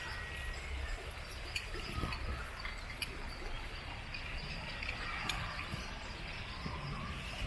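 Outdoor ambience: a steady low rumble with faint bird chirps, and a few sharp clicks scattered through it.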